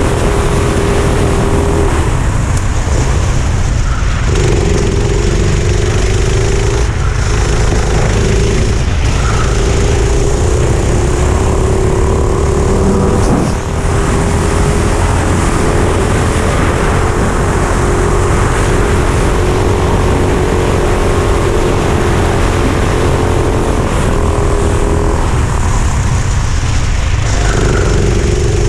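A Tony Kart's four-stroke engine at racing speed, its note climbing steadily along the straights and dropping off briefly several times as the throttle is lifted for corners. Heavy wind rumble sits on the onboard microphone throughout.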